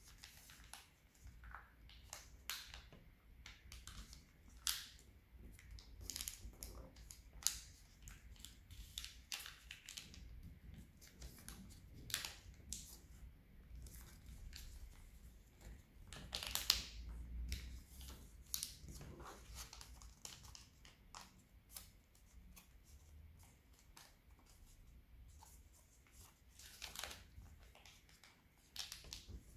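Sheet of origami paper rustling and crackling as it is folded and creased by hand: many short crisp crinkles, with a longer, louder rustle a little past halfway.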